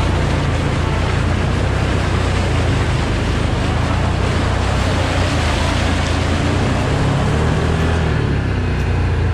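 Can-Am quad's engine running steadily as it rides through a muddy trail, with a continuous rush of tyre and mud noise over the engine's low hum.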